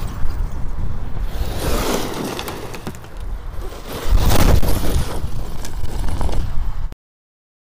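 Arrma Kraton 8S electric RC monster truck driving over rough construction-site dirt, its tyres crunching and scraping over the ground, with louder surges about two seconds in and about four seconds in. The sound cuts off abruptly near the end.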